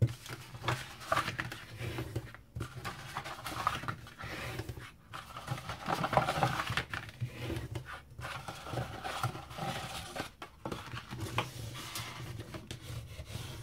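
Cardstock being folded along its score lines and burnished flat with a bone folder: irregular rustling and scraping of card against card and the mat.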